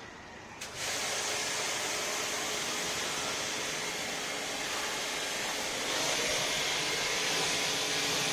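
Pressure washer jet spraying water through a 15-degree nozzle onto a van's body. A steady hiss starts just under a second in and turns brighter and a little louder about six seconds in.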